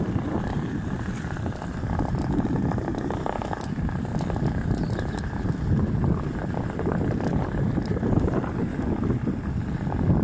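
Wind buffeting the microphone of a moving Onewheel rider: a steady, rough low rumble that swells and dips without break.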